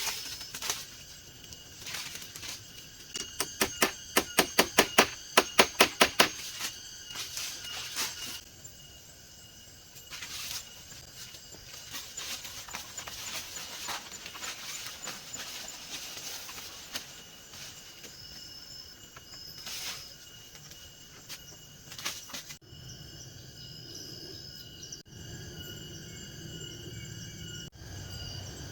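Forest insects trilling steadily. A quick run of about a dozen loud, sharp knocks, roughly three a second, comes a few seconds in, with a few single knocks later.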